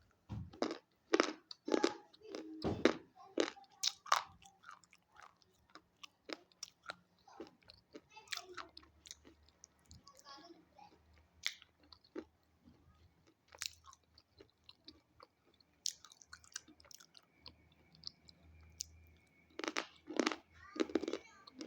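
Close-up crunching as a person bites and chews something hard and brittle: a run of loud crunches in the first few seconds, softer scattered chewing through the middle, then fresh loud bites near the end.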